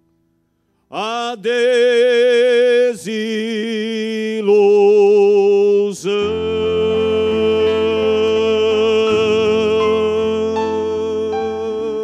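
The closing of a gaúcho folk song: after a brief pause, a male singer holds long notes with vibrato, almost unaccompanied. About six seconds in, the band of acoustic guitar, keyboard and accordion joins under him in a long sustained closing chord.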